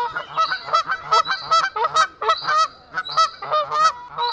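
Swan calling: a quick series of short honks, several a second.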